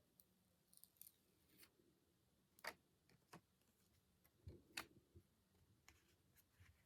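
Quiet hand-handling sounds: a few scattered light clicks and taps with some soft rustling, the sharpest click about two and a half seconds in and another near the five-second mark.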